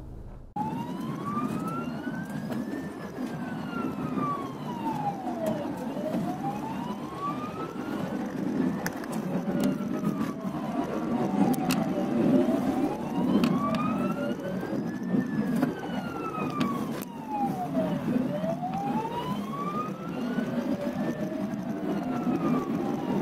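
Ambulance siren wailing, gliding slowly up and down about once every six seconds, with a second, lower siren tone joining partway through. Under it is the steady road and engine noise of a car following close behind in traffic.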